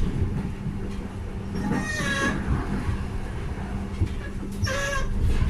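ÖBB class 4020 electric multiple unit squealing: two short high-pitched squeals, one about two seconds in and a briefer one near the end, over the steady rumble and hum of the moving train.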